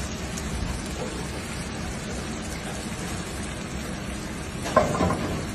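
Seafood rice simmering in broth in a frying pan over a gas flame: a steady sizzling, bubbling hiss, with a short louder clatter near the end.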